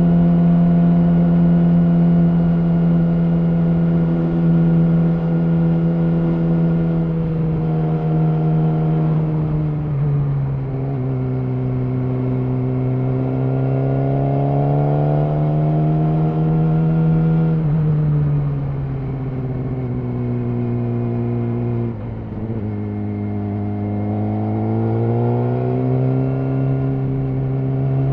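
Yamaha R6 inline-four motorcycle engine through an Akrapovic slip-on exhaust, running on the road. Its note holds steady, falls, climbs back up, falls again and climbs once more near the end as the throttle is worked.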